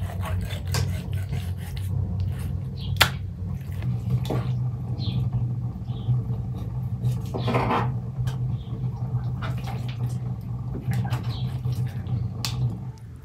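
A knife cutting up a raw whole chicken on a wooden board: scattered knocks of the blade on the board and wet handling of the meat. Under them runs a steady low hum that cuts off suddenly near the end.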